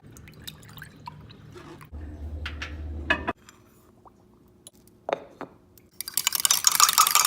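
Household kitchen sounds: scattered small clinks of glass and dishes, then near the end a loud hissing rush of liquid lasting about two seconds.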